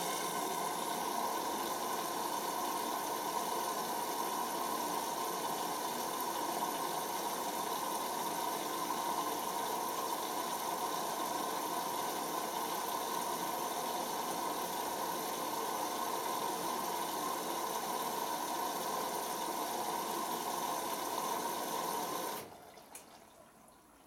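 Hoover Optima OPH714D washing machine's water inlet valve letting wash water into the drum: a steady hiss that cuts off sharply near the end.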